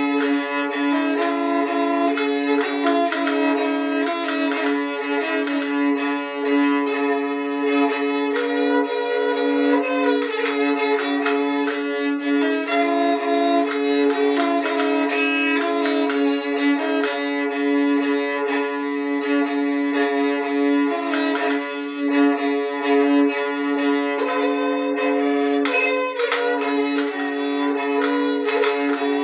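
Moraharpa, a bowed keyed fiddle fitted with sympathetic resonance strings, playing a melody over a steady drone note, rich in overtones.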